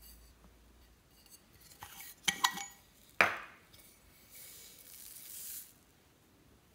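Small red beads pouring out of a metal-necked bottle into a glass dish, a steady hiss lasting about a second and a half. Before it there are a few quick clicks and one sharp knock as the bottle is opened and handled.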